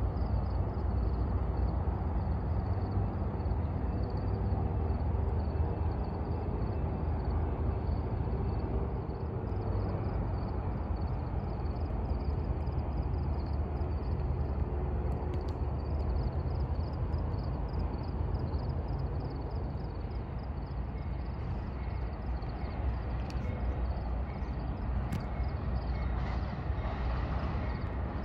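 Night ambience: a steady low rumble with insects chirping in a fast, even pulse. Near the end a faint hiss rises as a distant train starts to approach.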